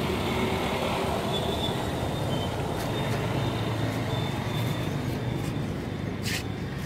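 Steady low rumble of road traffic, with a brief hiss about six seconds in.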